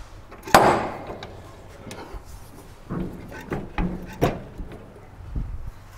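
A jack being worked to raise a truck cab on a wooden block: a sharp clank about half a second in, then a few lighter clunks and knocks.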